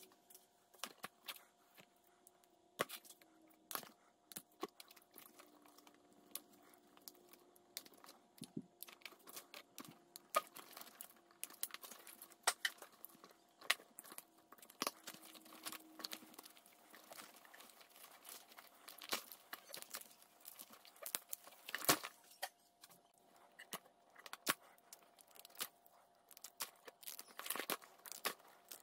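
Faint rustling, crinkling and clicking as gloved hands handle an old engine wiring harness: wires, plastic loom and connectors rubbing and knocking together, with scattered sharp clicks, one louder snap about three-quarters of the way through. A faint steady hum runs underneath.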